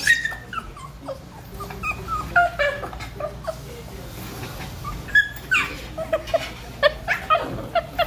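A dog whining and yipping in short, high calls that bend in pitch, coming faster and louder in the second half: the dog is begging for more ball play.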